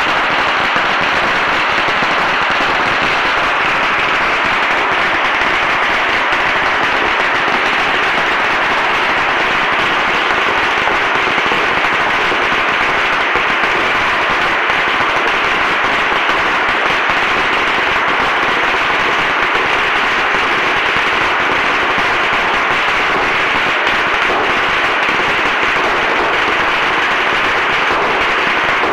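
Hanging strings of red Chinese firecrackers going off in a continuous, rapid crackle of bangs that does not let up.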